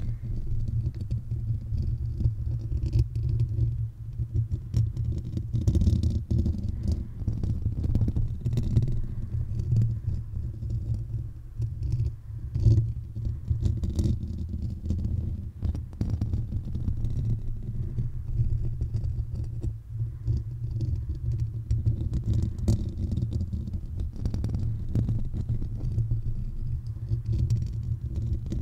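Fingernails scratching and rubbing over the metal mesh grille of a Blue Yeti microphone, close on the capsule, giving a continuous scratchy rustle over a heavy low rumble, with now and then a sharper tap or click.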